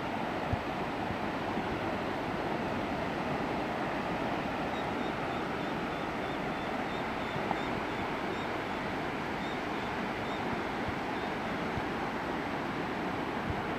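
Steady wash of sea surf breaking some way out across a tidal flat at low tide. A faint, high-pitched chirping repeats rapidly from about five to eleven seconds in.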